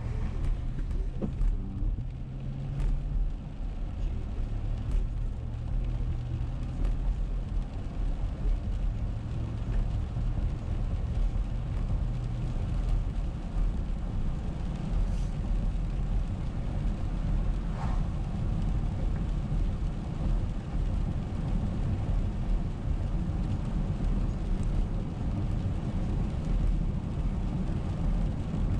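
Steady low rumble of a car driving on a wet road, heard from inside the cabin: engine and tyre noise, with a few faint ticks scattered through it.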